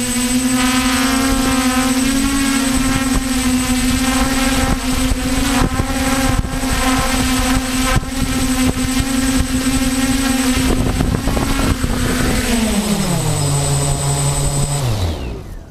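DJI F450 quadcopter's brushless motors and propellers hum steadily, heard from the onboard GoPro with wind buffeting the microphone. About twelve seconds in, the pitch drops in two steps, and the motors spin down to a stop near the end.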